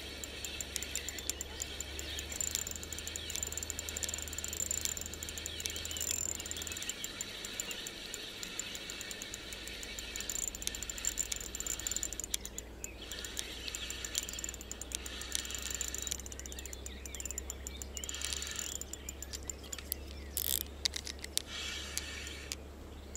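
Insects chirring steadily in high, fast trains of clicks, the sound of crickets or grasshoppers stridulating in summer vegetation.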